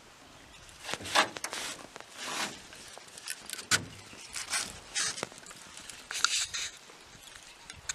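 Spinning reel being cranked in irregular spells to bring in a hooked fish, with scattered clicks and rustles.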